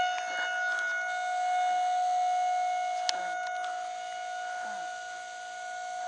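Outdoor warning siren sounding one steady, held tone that swells about two seconds in and then slowly fades. It is sounding for a severe thunderstorm warning.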